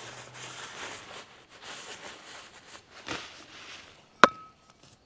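Rag wiping down a stub axle, a run of soft rubbing strokes, then about four seconds in a single sharp metallic clink with a short ring.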